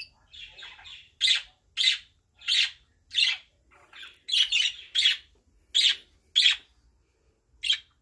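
Male budgerigars calling: a string of about a dozen short, sharp chirps, roughly one or two a second, with a pause near the end.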